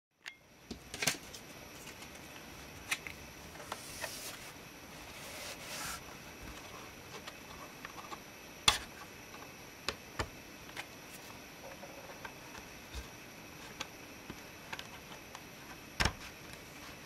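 Scattered small clicks and taps, with two brief scraping rubs a few seconds in, over a steady background hiss: hand work on a laptop's plastic and metal parts.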